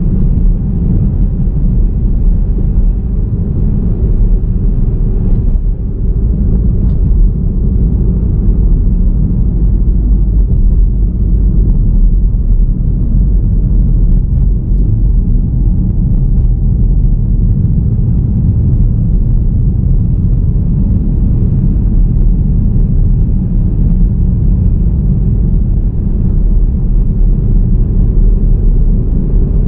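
Steady low rumble of a car driving along a road, with tyre and wind noise and no change in pace.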